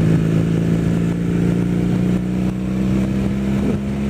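Kawasaki KZ440 LTD motorcycle's parallel-twin engine running steadily at cruising speed, picked up through a microphone covered with a cotton windscreen that keeps the wind noise down.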